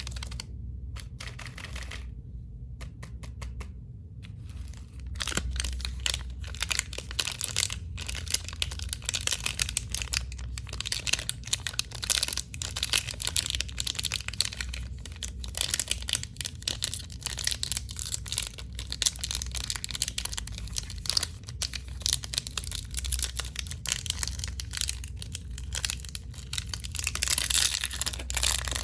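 Crinkling and tearing of plastic candy wrappers: a few sparse clicks, then dense crackling from about five seconds in.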